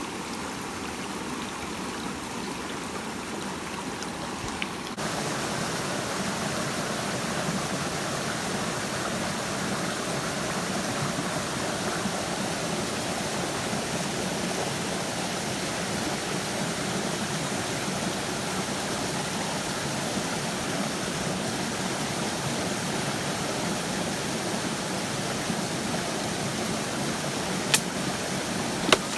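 Mountain stream water rushing steadily over rocks. It becomes louder about five seconds in, and two short sharp clicks sound near the end.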